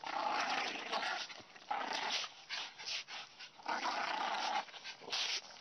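A dog making a string of noisy, breathy bursts, each about half a second to a second long, with short gaps between them.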